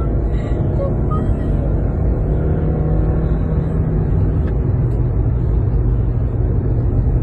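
Steady low rumble of a car driving along the road, engine and tyre noise heard from inside the vehicle.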